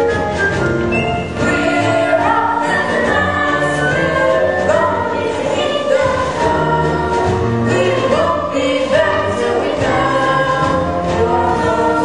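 Music with a choir singing, several voices holding notes together and changing pitch every second or so.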